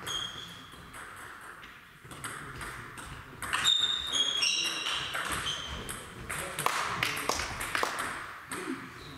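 Table tennis rally: the celluloid-type ball clicking off bats and table in quick, irregular strokes, ringing in a large sports hall, busiest from about the middle on. A few short high squeaks of shoes on the hall floor come in the middle as the players move.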